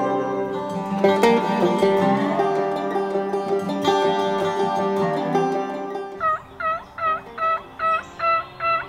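Plucked-string background music that stops about six seconds in. It is followed by a run of seven evenly spaced turkey yelps, about two or three a second.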